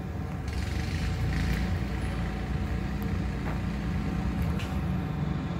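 Steady low rumble of machinery, with a soft hiss that swells for a second or so about half a second in.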